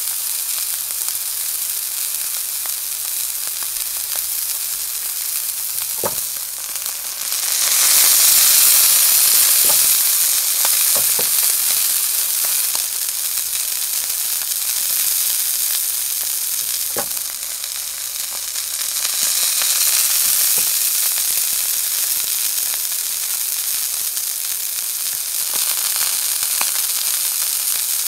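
Thick elk steak searing in hot fat in an enamelled pan: a steady high sizzle with a few sharp pops of spattering fat, swelling louder about eight seconds in and again near twenty seconds.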